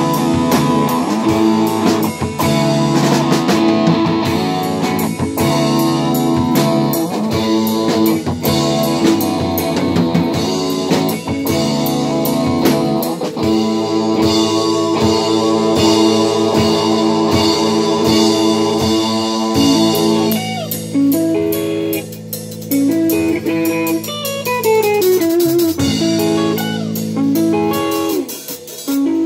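A rock band playing an instrumental passage on drum kit, electric bass and electric guitar. About twenty seconds in the drums thin out and the electric guitar plays sliding, bending lead lines that step downward.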